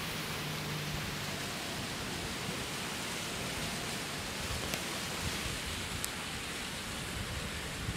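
Steady, even hiss of outdoor background noise with no distinct source, broken only by two faint ticks around the middle.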